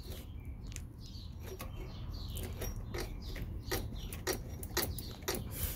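Irregular light metallic clicks and clinks as the alternator and nearby engine-bay parts are shifted by hand, about a dozen over a low steady hum.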